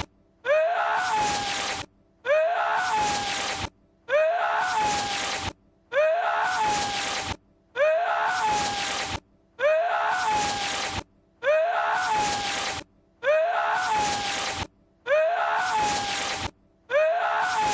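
Looped clip of Lord Voldemort's short, strained vocal cry that sounds like a sneeze, repeating identically about ten times, roughly every two seconds. Each repeat rises in pitch into a held high note over a breathy rush, then cuts off into a brief gap.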